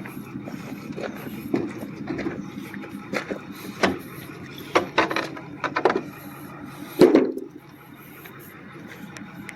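Scattered clicks and knocks from a tie-down strap and a vending machine being secured in a pickup bed, with a loud thump about seven seconds in, over a steady low hum of an idling engine.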